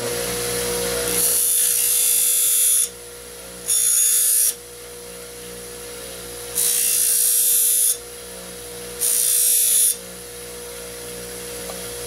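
Bench grinder with a Scotch-Brite wheel running with a steady hum, while the cut edge of a stainless damascus steel bar is pressed against the wheel four times, each pass a loud hiss lasting about a second. The passes knock off the burr left by cutting the bar.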